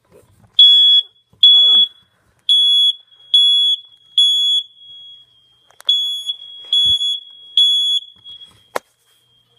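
Smoke alarm sounding its test: loud, high-pitched beeps on a single tone, eight in all, grouped in threes with a longer pause between groups (the temporal-three alarm pattern). The alarm stops a little over two-thirds of the way in, and a single sharp knock follows near the end.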